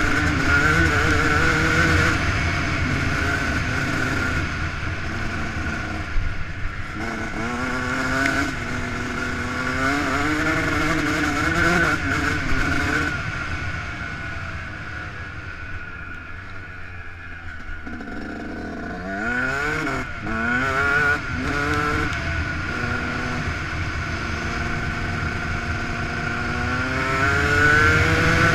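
Yamaha YZ125 two-stroke single-cylinder engine under way, revs climbing and dropping again and again as the rider accelerates and shifts. It eases off to a lower, quieter run about halfway through, gets a few quick throttle blips, then pulls hard again near the end.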